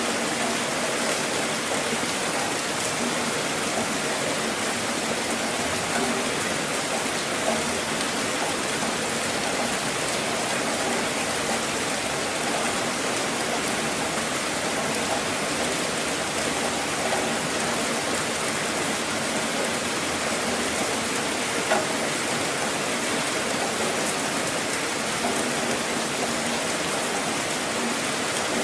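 Steady rain drumming on a car's roof and body, heard from inside the car: a dense, even patter with a few louder single drops now and then.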